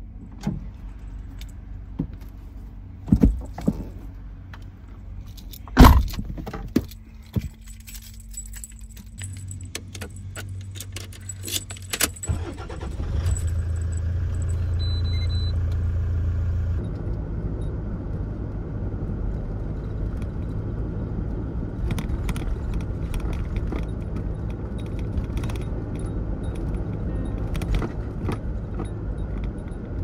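Inside a Toyota car cabin: scattered clicks and a loud thump about six seconds in, then keys jangling in the ignition, and the engine starting about thirteen seconds in. From about seventeen seconds the car is driving, with steady engine and road noise.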